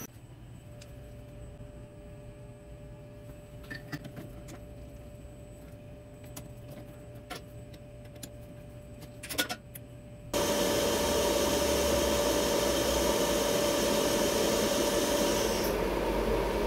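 A few small metal clicks as lines are handled on the injector, then about ten seconds in a Bosch diesel injector test bench starts abruptly and runs with a steady hum and hiss, pressurising the Bosch common-rail injector to 140 MPa for a leak test. Near the end the high hiss drops away.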